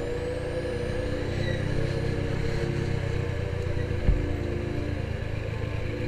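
Motorcycle engine running steadily while riding, with a single low thump about four seconds in.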